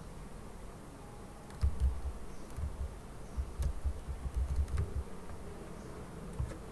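Keystrokes on a computer keyboard as a formula is typed: scattered clicks and soft thumps, busiest from about one and a half seconds in and again around the middle. A steady low buzz runs underneath.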